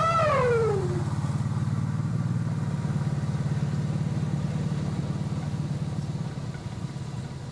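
Vehicle engine running steadily with an even, rapid pulse. A short pitched sound falls in pitch during the first second.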